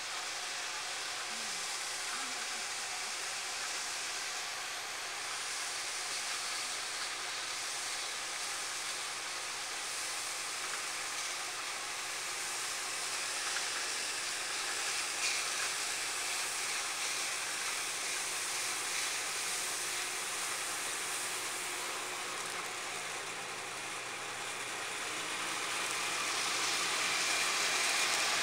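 Steady hissing run of harvesting machinery, growing louder over the last few seconds.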